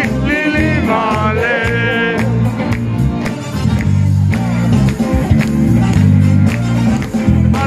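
Live pop-rock band performance: a woman sings over electric guitar, bass and a steady beat. Her voice drops out after about two seconds while the band plays on, and comes back near the end.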